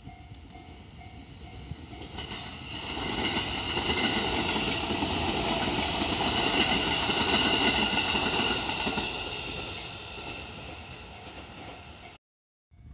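A Joban Line train passes over a level crossing. Its wheels rumble on the rails, building from about two seconds in, loudest in the middle, then fading away. At the start the level-crossing warning bell rings in a quick, steady repeating beat, and the passing train soon drowns it out.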